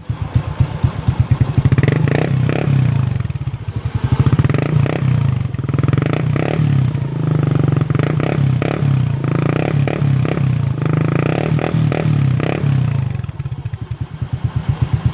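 Motorcycle exhaust through an Organ Sport aftermarket power pipe on a stock engine, recorded up close. The engine is revved in repeated short blips from about two seconds in, then settles back to idle near the end.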